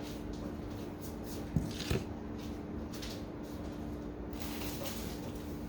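Two quick knocks in a row about a second and a half in, from things being handled and set down at a fridge and freezer, over a steady low hum.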